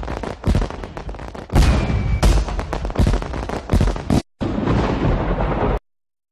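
Fireworks going off in quick succession: a dense run of sharp bangs and crackling, with a short whistle about two seconds in. It breaks off suddenly for a moment just past four seconds and then stops abruptly near the end.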